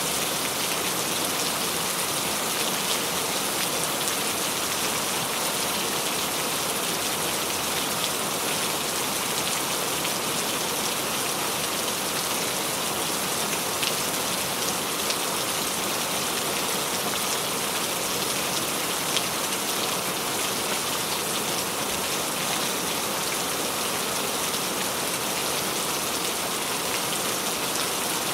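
Steady rain falling, an even hiss with scattered light drop ticks and no thunder.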